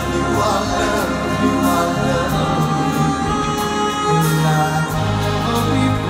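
Live slow ballad: a male singer's held notes over sustained keyboard chords from a Kawai stage keyboard.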